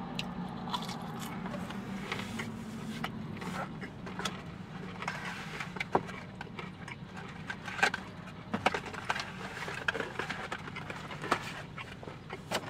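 Chewing a bite of chicken tender, then rustling, scraping and clicks of food packaging being handled as fries are fetched, over a low steady hum.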